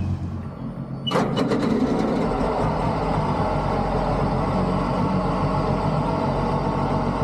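A supercharged mini jet boat engine, which cuts in sharply about a second in and then runs steadily.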